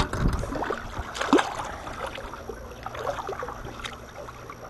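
Water splashing and gurgling against the side of a boat as a fish is held in the water and released over the side, with small knocks on the hull. A sharp knock comes at the start, and the loudest splash comes about a second and a half in.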